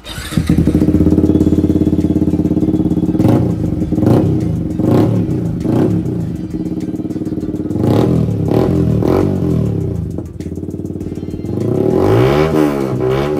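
Yamaha MT-15's single-cylinder engine running through an SC Project slip-on muffler that is held in place by hand on the link pipe for a sound test. It idles steadily and is revved in several short throttle blips.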